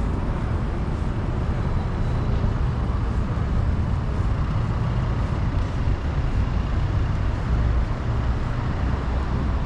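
City street traffic: a steady low rumble of passing motor vehicles.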